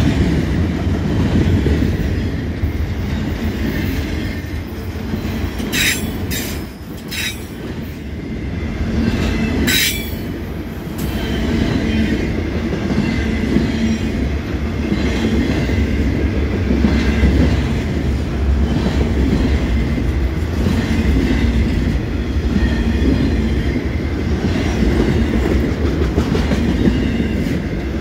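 A freight train of autorack cars rolling past close by, its wheels rumbling and clacking steadily over the rails. Brief high metallic squeals come from the wheels a few times around the middle.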